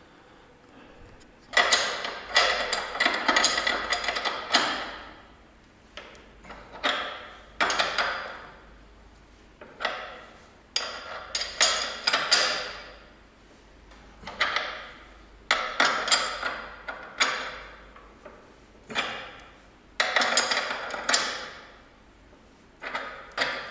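Steering-head bearing races being pressed into a pit bike's head tube: a series of sharp metallic creaks and rings, one every second or two, some drawn out for a couple of seconds, as the races move in under the press.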